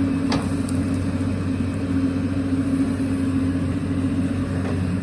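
Excavator's diesel engine running steadily with an even, unchanging hum.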